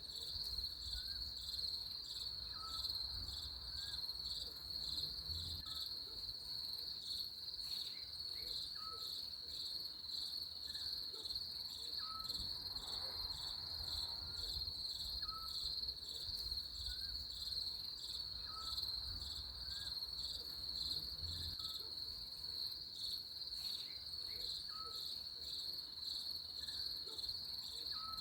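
Steady chorus of crickets, a continuous high, finely pulsing trill, with a faint short rising note repeating every second or two beneath it.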